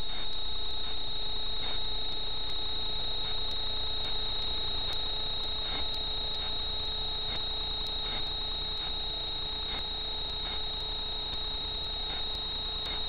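Electronic self-noise of a Dörr BolyGuard 5.0 Multi IR trail camera: a steady high-pitched whine with fainter steady tones below it and a low hum. Faint ticks come evenly, a little more than once a second, and the level slowly sinks.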